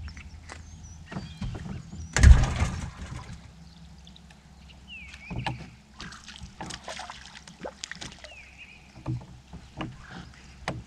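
Handling noise on a fishing boat: scattered small clicks and knocks of rod, reel and deck, with one loud thump and rustle about two seconds in.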